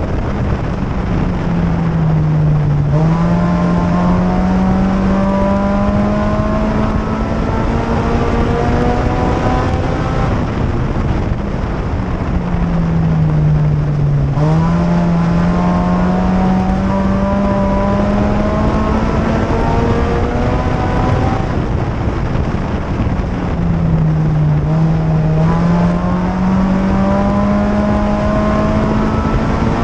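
2004 Chevrolet Cavalier's 2.2-litre four-cylinder race engine, heard from inside the car while lapping an oval. The engine note dips three times, about every eleven seconds, as the driver eases off for the turns, then climbs steadily back up along each straight. Constant road and wind noise runs underneath.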